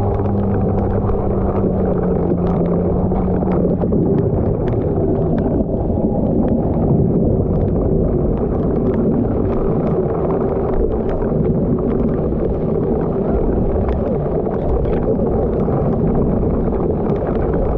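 Heavy rain pelting a boat-mounted camera and the wet deck, with wind buffeting the microphone: a constant rumbling wash dotted with sharp ticks of individual drops. A low engine hum fades out in the first few seconds.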